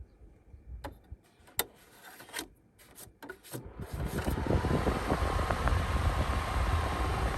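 A few light clicks, then about four seconds in a machine starts and runs steadily: a loud, even rushing noise over a deep rumble, with a faint steady whine.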